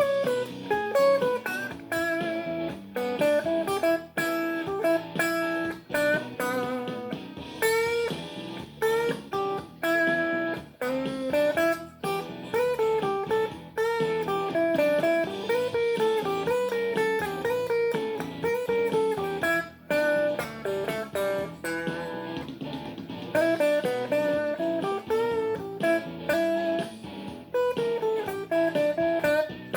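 Guitar playing blues: picked single-note lines with bent notes, played continuously.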